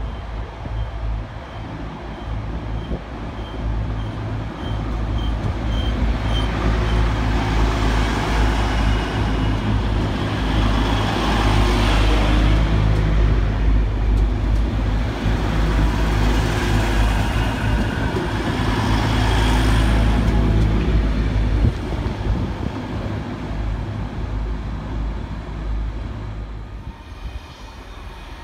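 A DB class 612 diesel multiple unit running its diesel engines as it rolls past close by, a steady low engine drone under rising wheel and running noise that swells twice and then fades. A series of faint high beeps sounds over the first six seconds or so.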